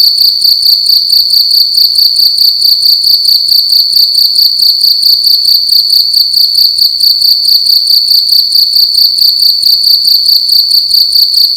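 A cricket chirping loudly and without a break: a single high-pitched note pulsing in a fast, even rhythm.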